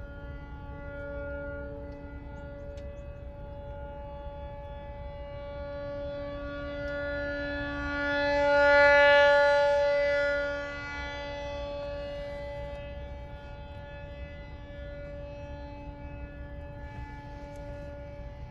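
ASC T-128 rotating outdoor warning siren sounding one steady, unchanging tone during its scheduled test. It grows louder about halfway through as the rotating horn turns toward the listener, then falls back.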